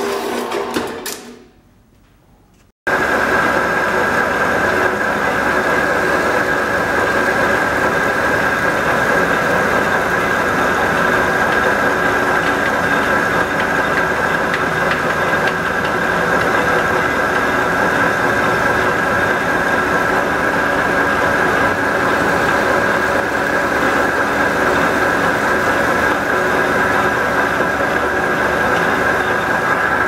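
Metal-cutting band saw running, its sound dying away over the first two seconds. Then a metal lathe runs steadily with a constant whine, spinning a small part in its chuck.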